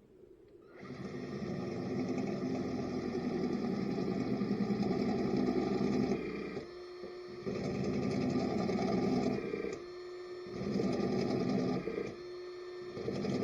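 Power drill boring a small hole through metal for a rivet nut. It runs under load for about six seconds, then in three shorter bursts, easing to a lighter steady whine between them as the bit eases off the cut.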